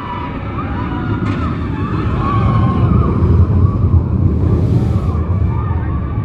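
Roller coaster train rumbling along its track, growing louder to a peak a few seconds in, with people screaming over it.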